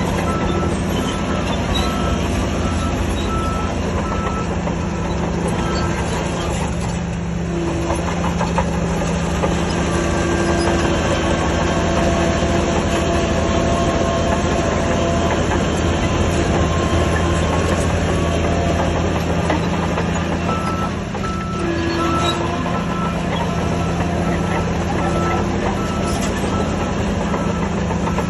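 Heavy diesel earthmoving machinery running steadily, with a back-up alarm beeping in a regular on-off pattern at the start and again over the last several seconds as a machine reverses.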